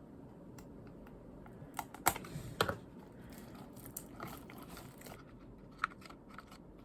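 Album packaging and photocards being handled: a few sharp clicks and taps, loudest about two seconds in, over light rustling.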